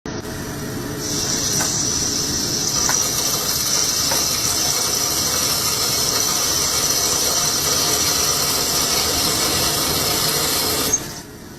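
Machining noise: a machine tool cutting with a steady hissing whir. It builds up about a second in and cuts off suddenly near the end.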